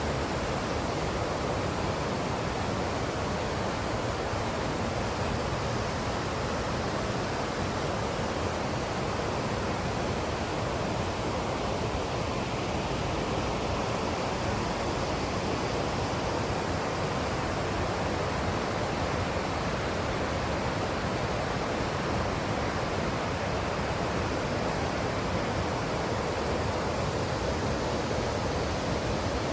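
Mountain stream rushing steadily, an even, unbroken wash of water noise.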